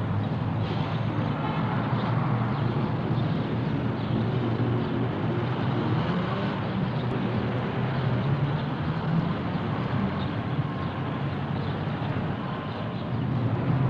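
Steady low rumble of city traffic ambience, with no distinct events standing out.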